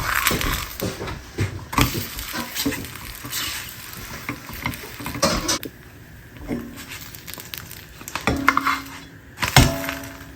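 Dishes and cutlery clinking and knocking together, in irregular clatters throughout, as in handling or washing up kitchenware.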